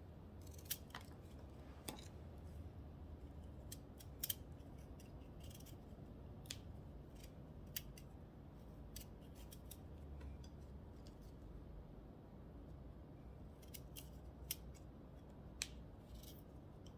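Black turmeric rhizomes being cut up by hand: quiet, scattered sharp snips at irregular intervals over a faint low hum.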